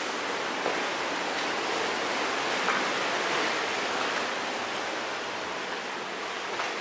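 A steady, even rushing noise of the open air, unchanging in level, with a few faint ticks over it.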